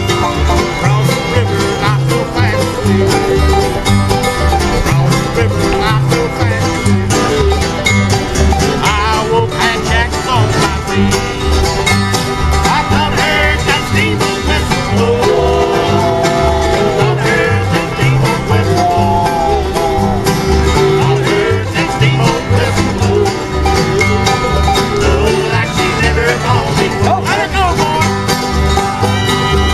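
Bluegrass band playing an instrumental tune, with banjo and guitar to the fore and a fiddle, over a steady bass beat.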